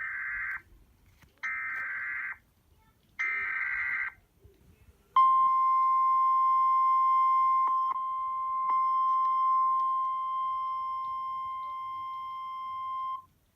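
Emergency Alert System header: three short screeching digital data bursts about a second apart, then a steady single-tone attention signal held for about eight seconds, with a few faint clicks in it, announcing an emergency alert broadcast.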